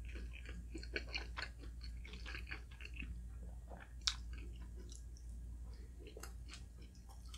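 Close-miked chewing of food: a steady run of small, irregular mouth clicks and smacks, with one sharper click about four seconds in.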